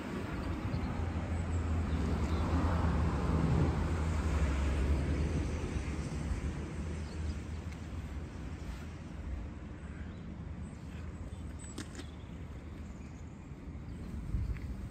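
A vehicle's engine hum that swells over the first few seconds and then fades to a low, steady rumble.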